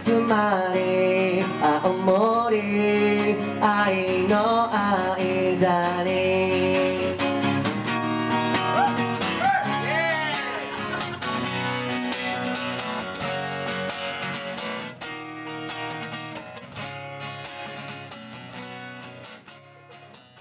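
Closing bars of a song performed live: strummed guitar with wordless sung notes over it. The sound fades out over the last few seconds.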